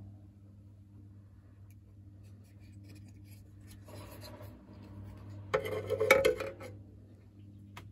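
Handling noise: rubbing, then a short burst of clicking and clattering of hard objects about five and a half seconds in, over a steady low hum.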